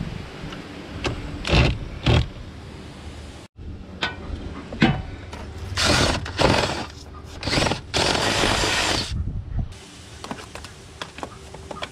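Cordless drill with a long bit boring into a wooden wall, running in several short bursts and one longer run of about a second near the end.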